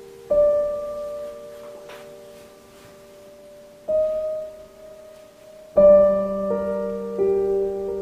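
Slow, soft solo piano background music: single sustained notes that ring and fade, then a fuller chord about six seconds in, followed by a few more notes.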